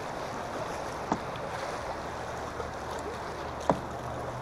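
Choppy river water rushing and slapping steadily against a kayak's hull, with two sharp knocks against the boat, the louder one near the end.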